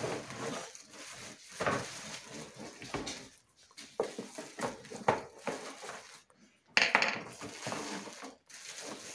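Plastic packaging rustling and crinkling as metal shelf pieces are unwrapped, with occasional light metal clinks; the loudest rustle comes about seven seconds in.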